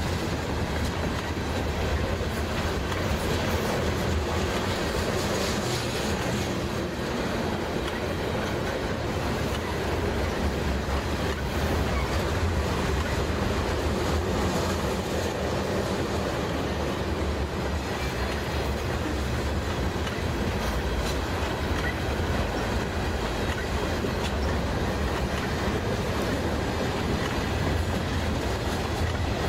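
Freight train of CN covered hopper cars rolling past at a steady pace: a continuous low rumble of steel wheels on the rails.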